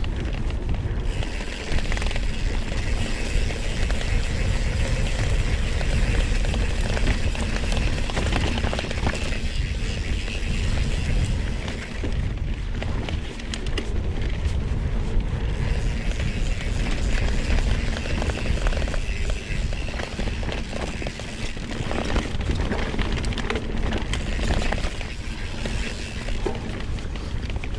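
Mountain bike ridden along a sandy dirt trail: steady tyre and trail noise with many small clicks and rattles from the bike, and wind rumble on the microphone.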